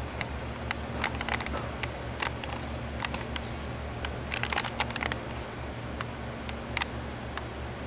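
Sharp, short clicks at irregular times, some in quick clusters, over a steady low hum.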